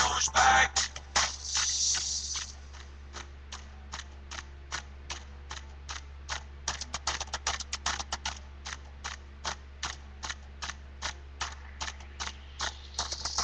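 The music and singing stop about a second in, followed by a short hiss; then a long run of light, uneven clicks, a few a second, until a hiss comes back near the end.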